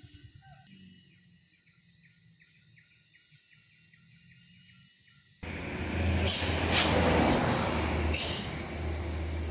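Quiet forest ambience with a thin, high, steady insect-like tone. About five and a half seconds in, it switches suddenly to a loud passing motor vehicle, with a low engine hum and rushing road noise.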